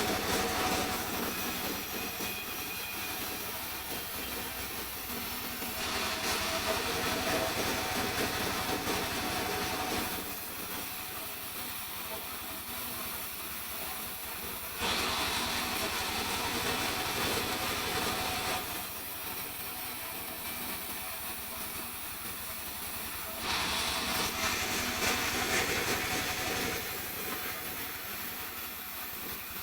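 Sawmill saw running steadily and cutting mahogany. Three times it grows suddenly louder and brighter for a few seconds as a cut goes through the wood, then drops back to a quieter steady run.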